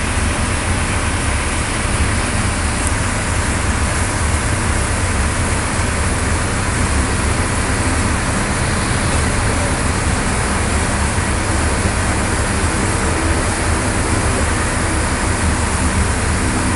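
Loud, steady drone of airport ramp machinery running, with a strong low hum under an even hiss.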